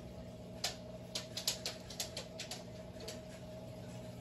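Steady hum of running aquarium equipment, with a quick irregular run of about a dozen light clicks from about half a second to three seconds in.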